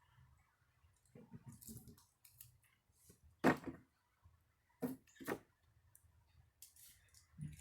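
Handling noise with a few separate sharp knocks, the loudest about three and a half seconds in, two more close together about five seconds in and another near the end, with some rustling early on.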